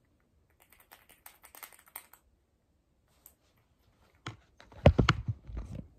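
Light clicks and taps from handling small objects, then a louder cluster of knocks, deep thuds and rubbing near the end, as a hand works close to the microphone.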